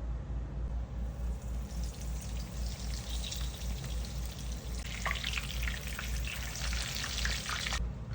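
Food frying in a hot pan: a sizzle that builds about two seconds in into dense crackling, then cuts off suddenly near the end. A low hum runs underneath.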